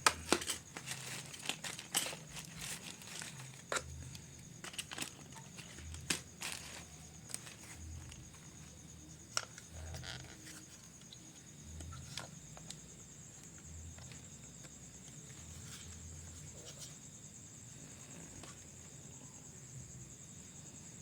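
Sharp clicks, taps and plastic crinkling as a headlamp's charging plug is handled and pushed into the lamp, thinning out about halfway through. Crickets chirp steadily in the background.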